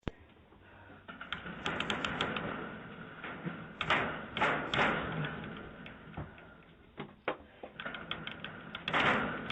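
A door being rattled and struck: a run of clicks and knocks with louder thumps about four seconds in and again near the end, picked up by a doorbell camera's microphone.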